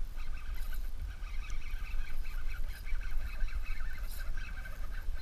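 Birds calling in the background, many short calls overlapping, over a low steady rumble.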